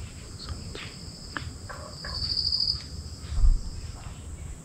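Steady, high-pitched chorus of crickets and other insects in the forest, with a few short bird calls answering each other and a brief trill about two seconds in. A soft low thump about three and a half seconds in.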